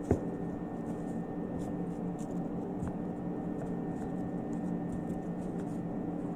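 A kitchen knife knocks once on a cutting board just after the start while cutting green pepper, with a fainter tap near the middle. Between them only a steady low hum and a few faint light ticks.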